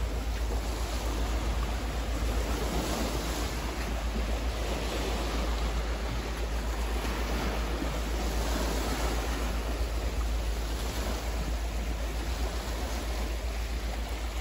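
Small river waves lapping against a rocky bank, with wind blowing across the microphone and a steady low rumble underneath.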